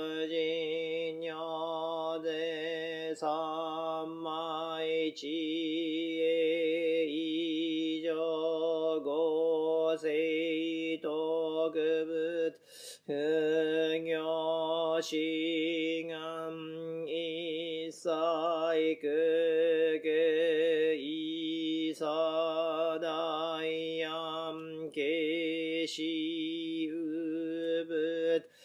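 Buddhist sutra chanting from a Jodo Shinshu morning service: a single priest's voice reciting in long phrases on a nearly steady pitch, with a short break for breath about halfway through.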